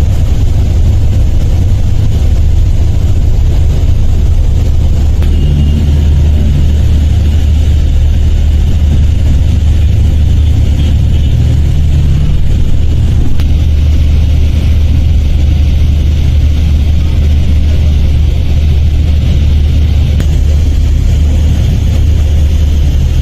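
Steady low rumble of a moving sleeper bus heard from inside the cabin: engine and road noise.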